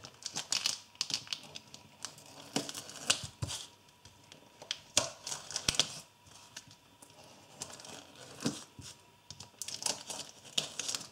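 Thick plastic packaging of a tofu block crinkling and tearing as a Spyderco Native 5 folding knife cuts it open, with irregular crackles and clicks.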